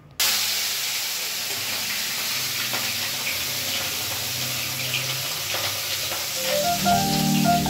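Turmeric-coated hilsa fish pieces sizzling steadily as they fry in hot oil in a steel pan, the sizzle starting suddenly. A music track with a rising run of notes comes in near the end.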